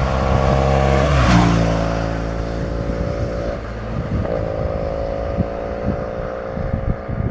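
Engine of a motor vehicle passing close by, its pitch dropping as it goes past about a second in, then a steady engine hum.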